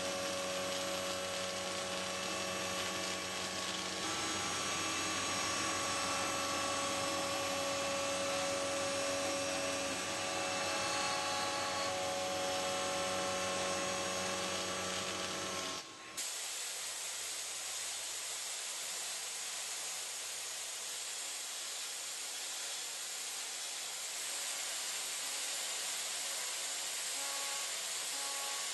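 Steady machine noise: a whine made of several held tones over a hiss. About sixteen seconds in it cuts off suddenly and gives way to a steady hiss with a few faint tones.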